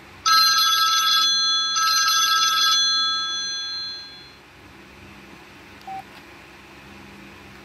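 Samsung Contour 2 mobile phone's speaker playing a telephone-bell ringtone: two rings of about a second each with a short gap, the ringing dying away over the next second or so. A single short key beep comes about six seconds in.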